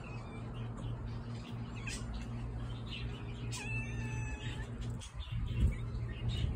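A cat gives one clear meow of about a second, a little past the middle, over a steady low hum. A couple of low thumps come near the end.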